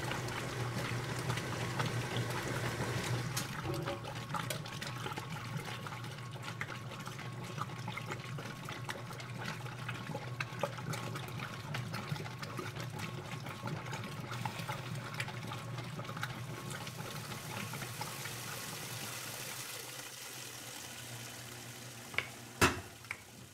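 Washing machine running: water sloshing and trickling in the drum over a steady low hum, with two short knocks near the end.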